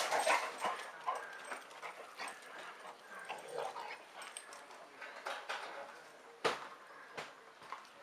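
Excited pet dogs making short scattered calls. Two sharp knocks come near the end.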